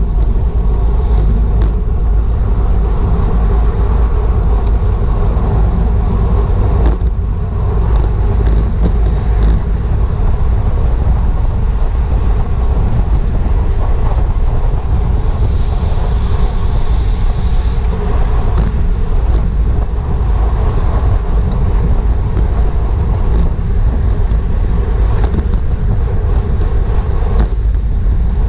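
Wind rushing over a GoPro's microphone on a bicycle at race speed: a loud, steady low rumble. Scattered sharp clicks and rattles run through it, with a brief higher hiss a little past the middle.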